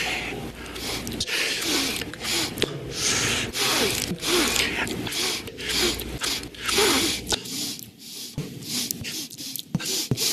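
A man sniffing sharply through his nose again and again, close on a microphone, in quick succession.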